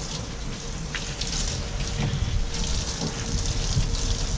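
Hand-held hose nozzle of a self-service dog-wash machine spraying disinfectant rinse onto the tub's walls and floor, a steady hissing spatter of water, with a faint steady hum underneath.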